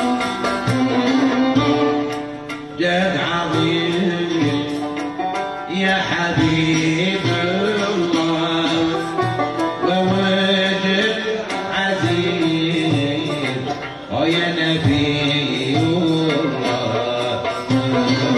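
Live traditional North African ensemble music: a frame drum and hand drum keep the beat under plucked banjo and lute and a violin playing the melody. The music thins out briefly twice, about two and a half seconds in and again near fourteen seconds.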